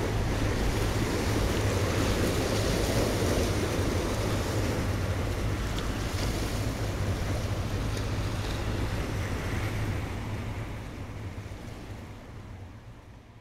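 Wind buffeting the microphone over water washing against the shore, with a steady low rumble underneath. It all fades out over the last few seconds.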